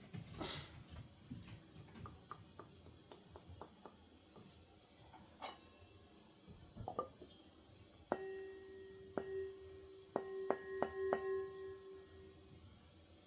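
Light handling clicks and taps, then a metal part struck about five times, each strike leaving a clear, bell-like ringing tone that dies away over a few seconds.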